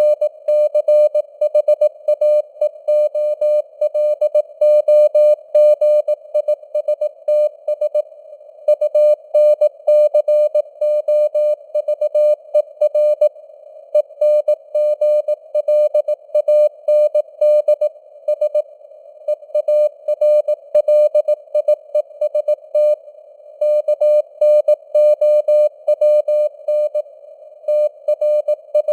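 Morse code (CW) at 18 words per minute: one steady-pitched beep keyed on and off in dots and dashes, with short pauses between words. Underneath runs a narrow band of simulated radio-receiver hiss, and the signal strength rises and falls a little (QSB).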